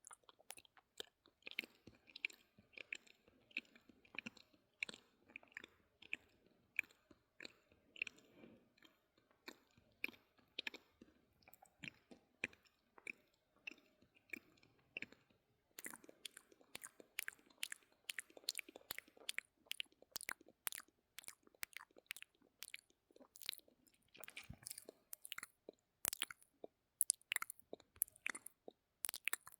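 Close-miked ASMR mouth sounds: a dense, irregular run of wet lip and tongue clicks and smacks, turning sharper and brighter about halfway through.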